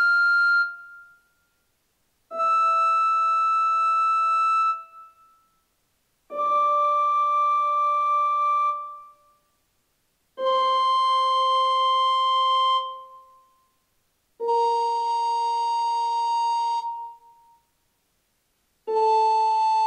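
Treble (alto) recorder playing a slow descending F major scale in its upper register: long, steady held notes about every four seconds with short silences between, the high F dying away at the start, then E, D, C and B-flat, with A beginning near the end.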